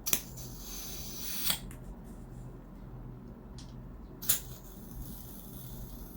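Green gas hissing from a can into an airsoft gas blowback pistol magazine through its fill valve, for about a second and a half, then a sharp click about four seconds in as the nozzle is handled.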